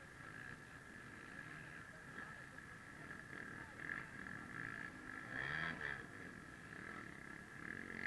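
Motocross bike engines revving as riders pass through a dirt corner, heard faintly, with a steady high whine throughout and louder swells as bikes come close about four, five and a half and eight seconds in.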